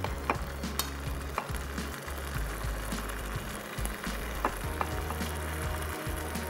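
A metal spoon scraping and tapping cooked rice out of a metal pan onto a ceramic platter, with several sharp clinks, over a steady hiss.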